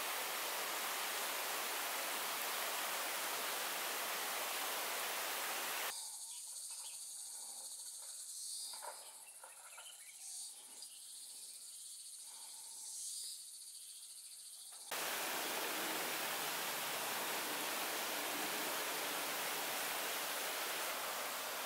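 Steady rush of flowing stream water, broken about six seconds in by a sudden cut to a quieter stretch of about nine seconds with a high, steady insect buzz and a few faint chirps. The water rush then returns just as suddenly.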